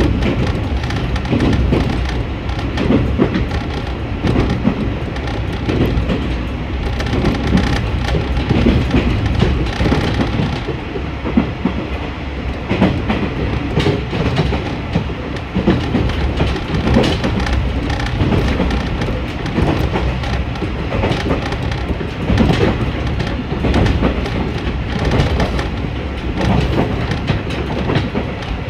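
Diesel railcar running at speed, heard from inside the carriage: a steady low rumble of the train in motion with wheels clicking over the rail joints.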